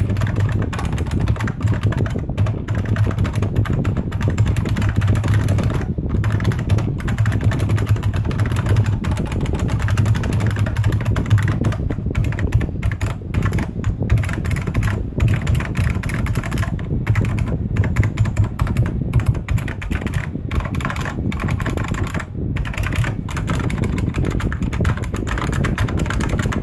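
Continuous fast typing on a Unicomp Ultra Classic buckling-spring keyboard: a dense run of key clicks with a few brief pauses.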